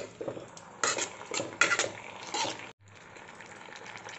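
Steel ladle scraping and clicking against a wok while stirring vegetables in a thin sauce, a rapid run of scrapes through the first three seconds. Then it cuts off sharply, leaving a faint steady hiss of the sauce simmering.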